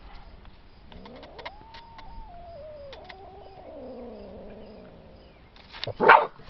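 A cat yowling at the dogs: one long drawn-out call, about four seconds, that rises in pitch, holds, then slides down. A warning call from a cat standing its ground. Near the end comes one short loud sound.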